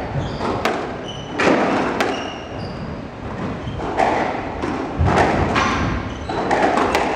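Squash rally: the rubber ball smacks off racquets and the court walls in sharp hits a second or more apart, with short high squeaks of court shoes on the hardwood floor.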